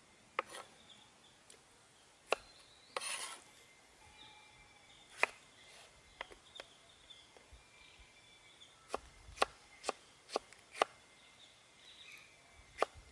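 Meat cleaver chopping a tomato on a wooden cutting board: sharp knocks of the blade hitting the wood, single and a couple of seconds apart at first, then a quicker run of about five chops past the halfway point. About three seconds in there is one short rough scrape.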